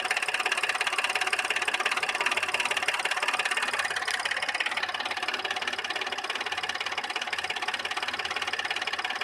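Audi A6 C6 3.2 V6 engine running with a steady, rapid knocking. The owner does not know the cause and notes that the engine also lacks power and misfires.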